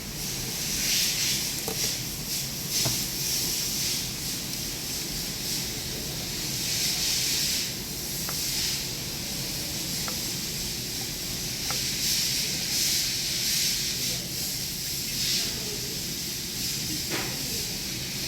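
Steady rushing hiss of air that swells and fades every second or two over a low hum, with a few faint light clicks.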